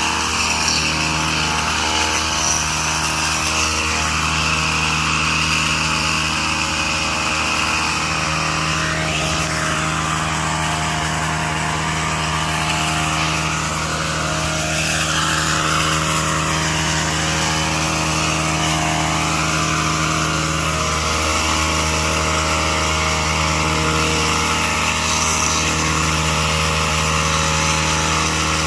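Small gas engine of a hedge trimmer running steadily at a constant speed while the bushes are cut.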